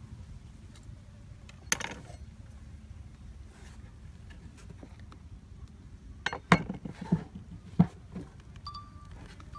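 Kitchen knife and cleaver knocking on a wooden chopping board while raw pork is cut: one sharp knock about two seconds in, then a quick run of knocks and clinks between about six and eight seconds in.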